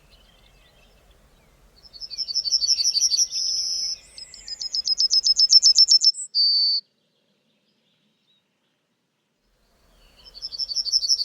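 Yellowhammer singing: phrases of rapid, high repeated notes, each ending in a drawn-out note. Two phrases follow each other about 2 and 4 seconds in, and a third begins near the end after a short pause.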